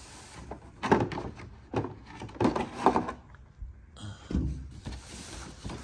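Starlink kit's cardboard box being opened and its contents handled: a string of knocks and taps with rustling, and a soft hiss of sliding packaging from about four seconds in.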